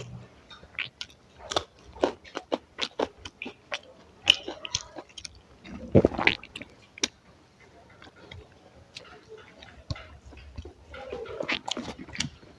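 Close-miked eating: a person chewing and biting food, with many short, sharp, wet mouth clicks and smacks. The loudest bite comes about six seconds in, and a dense run of chewing near the end.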